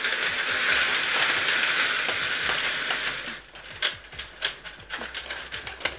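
Window blinds being closed: a steady rush of noise for about three seconds, then a few separate clicks and taps.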